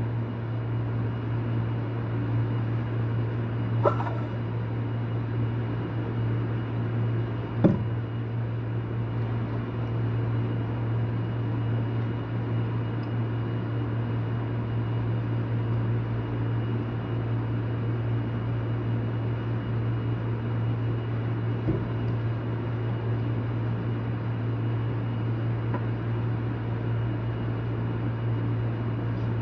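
A steady low hum, with three light clicks scattered through it as small parts are handled.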